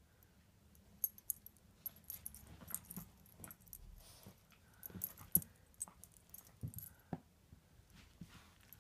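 Metal tags on a dog's collar jingling and clinking in irregular bursts from about a second in, as the dog noses and digs through a pile of clothes, with soft rustling of the fabric.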